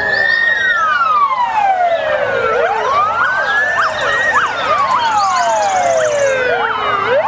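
Several fire-engine sirens wailing at once from a passing convoy, their slow rising and falling wails overlapping. Quicker yelping sweeps join in near the end.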